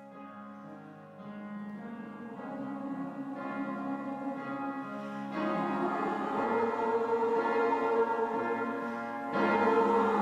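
Music of sustained, held chords that change every second or two, fading in from quiet and swelling louder, with a further jump in loudness near the end.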